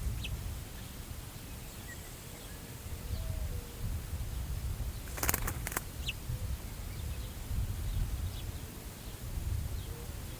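Prairie wind gusting over the grass and buffeting the microphone in a low rumble that swells and eases, with faint, scattered bird chirps. A quick cluster of sharp clicks comes about five seconds in.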